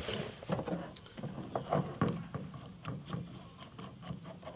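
Hydraulic hoses and their metal screw fittings being handled, giving irregular light clicks and knocks, several a second.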